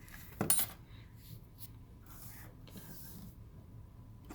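A sharp plastic click about half a second in, then faint handling and rustling of the Mazda RX-8's A/C control unit parts during reassembly.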